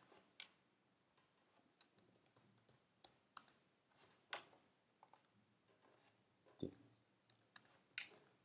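Faint, scattered clicks of a computer keyboard and mouse, irregular and a few seconds apart, with a few sharper clicks in the second half.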